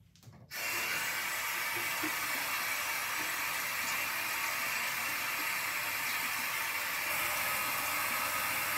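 Sink tap running at full flow, water splashing steadily into the basin; it comes on about half a second in and is really loud.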